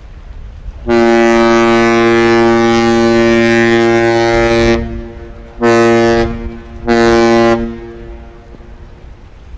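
Mesabi Miner's ship horn sounding the master's salute: one long deep blast, then two short ones. Wind noise lies underneath.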